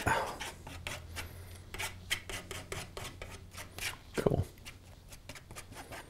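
Steel palette knife dabbing and scraping thick oil paint onto a canvas: a run of quick, irregular taps and rasps, several a second.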